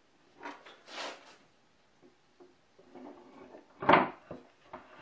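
Plywood bandsaw table top being handled and shifted on its wooden subtable: a few short wooden rubs and knocks, with the loudest knock just before four seconds in.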